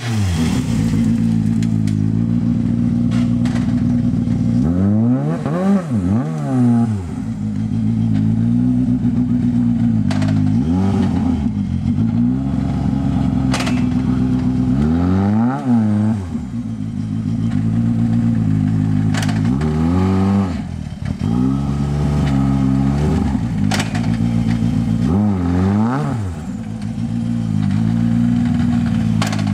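Skoda Fabia R5 rally car's 1.6-litre turbocharged four-cylinder engine running close by with the car standing. The revs climb and fall back about every five seconds as the throttle is blipped, with a few sharp cracks in between.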